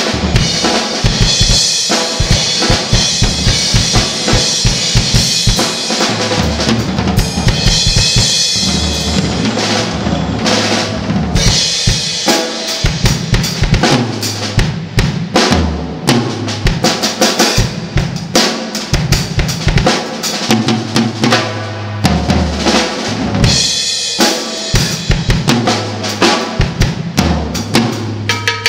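Acoustic drum kit played in a busy, fast groove: kick drum, snare and cymbals struck densely without a break.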